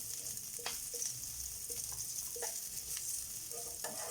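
Chopped garlic and onion sizzling in hot rice bran oil in a pan, a steady hiss, with a few sharp knocks of a utensil against the pan as they are stirred.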